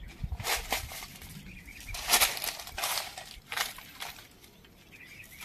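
Dry fallen leaves and seed husks crunching and rustling in irregular crackles as they are stirred and trodden on, loudest about two seconds in and thinning out near the end.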